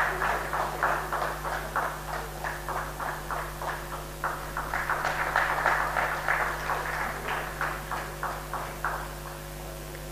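Audience and stage guests applauding, a fast patter of hand claps that thins out and dies away near the end.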